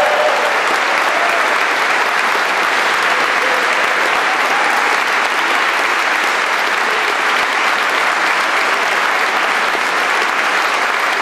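A roomful of guests applauding steadily.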